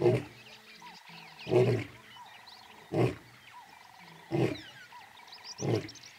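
Male lion roaring to announce his presence: a run of five short, deep grunting roars, evenly spaced about a second and a half apart. This is the grunting part of a roaring bout.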